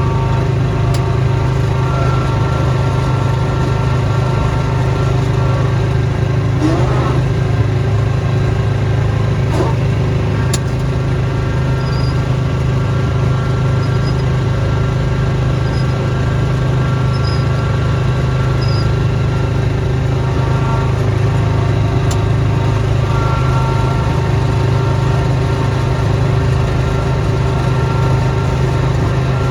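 Snowblower engine running steadily at a constant speed, with a few faint clicks over it.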